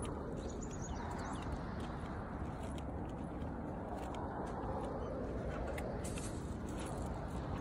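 Steady outdoor background noise, mostly a low rumble, with a few faint high chirps about a second in.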